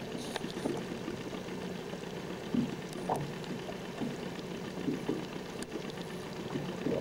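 Small waves lapping and splashing irregularly against the hull of a small boat, with a faint steady hum underneath.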